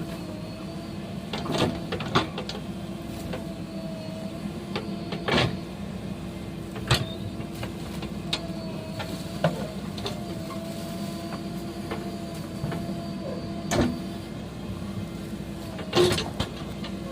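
A machine's steady hum with a slightly wavering pitch, broken by irregular sharp knocks and clanks.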